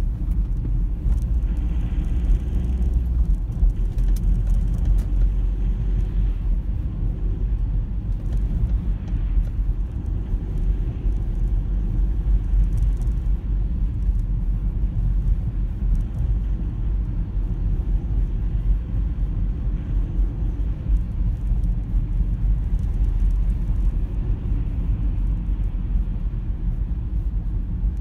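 Steady low rumble of a car driving on a town road, engine and tyre noise heard from inside the cabin.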